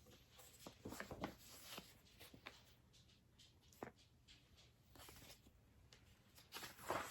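Faint rustling and light clicks of a picture book being handled, such as pages being turned, in short scattered bursts with a slightly louder cluster near the end.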